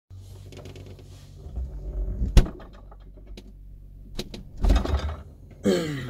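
Knocks and clicks of a phone being handled and set in place on a fridge shelf: one sharp knock, a few lighter clicks and a bumping rustle, over a steady low hum. Near the end comes a short sound that slides down in pitch.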